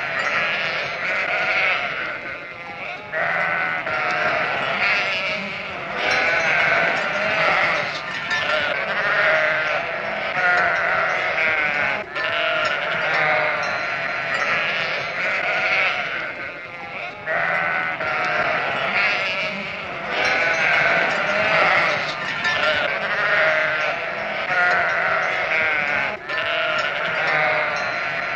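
A flock of sheep bleating: many overlapping bleats, almost without a break.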